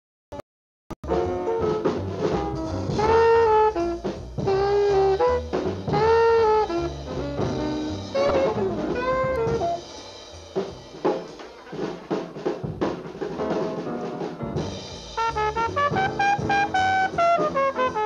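Bebop jazz: an alto saxophone plays quick melodic phrases over drums and bass. The sound drops out for about the first second, and from about halfway it thins to mostly drums before the horn comes back near the end.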